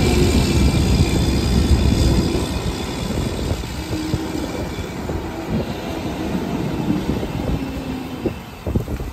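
Old Mack rear-loader garbage truck driving off, its diesel engine running and fading as it pulls away, with a few short squeals from the truck.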